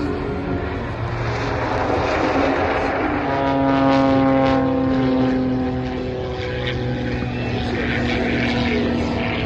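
Propeller airplane engine passing overhead, its steady note growing to its loudest about four seconds in and then easing off.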